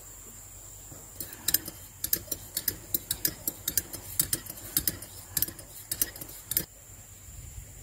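A spoon clinking against the inside of a ceramic mug while tea is stirred: a quick run of light clicks, about four or five a second, that starts about a second in and stops abruptly near the end.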